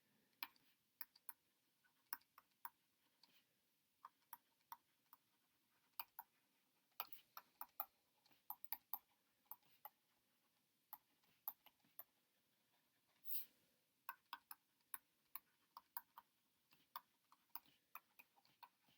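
Faint, irregular small clicks and taps of writing, scattered through near silence, with one brief rustle about two-thirds of the way through.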